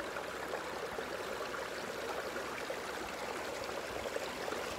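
Steady wash of shallow sea water at the shore, an even rushing with faint trickling.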